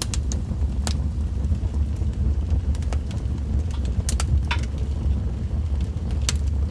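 Wood fire in a fireplace crackling: scattered sharp pops over a steady low rumble.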